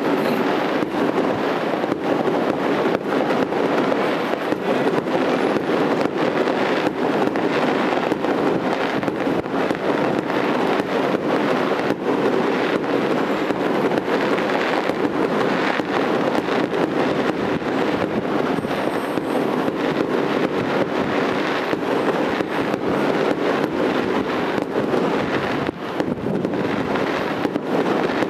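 Fireworks display: aerial shells and crackling effects bursting in a dense, unbroken stream of pops and bangs.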